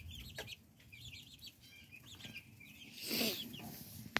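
Young guinea fowl keets and chicks peeping with many short, high chirps, faint and scattered. A brief louder rustling noise comes about three seconds in.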